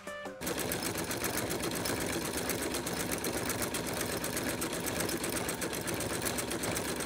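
Sewing machine running at a fast, steady speed, its needle stitching with a rapid, even clatter.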